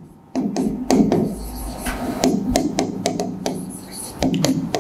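Stylus tapping and scraping on the glass of an interactive touchscreen whiteboard as handwriting is written: a string of sharp taps mixed with short scratchy strokes.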